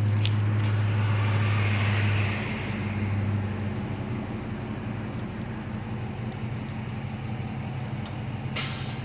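A car running with a steady low hum that drops a little about two seconds in, with faint sharp clicks every so often and one louder click near the end. The clicks are the brake clicking noise heard when the car is moving.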